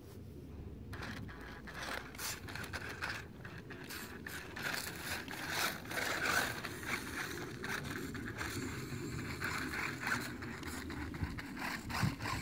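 RC rock crawler climbing over sandstone: its electric drive runs as a steady low hum under a busy stream of small clicks, scrapes and crunches from its tyres on rock and dry grass. It grows louder over the first couple of seconds as it comes closer.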